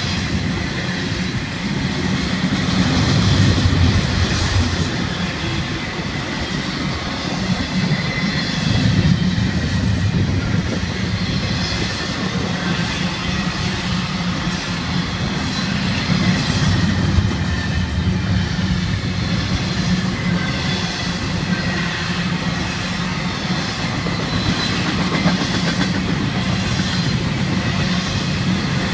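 Florida East Coast Railway double-stack intermodal well cars rolling past in a continuous rumble of steel wheels on rail, with wheel clacks coming back every few seconds.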